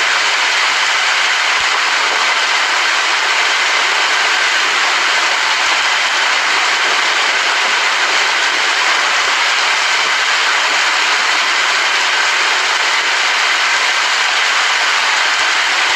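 Steady, heavy rain falling: a dense, even hiss of drops with no let-up and no thunder.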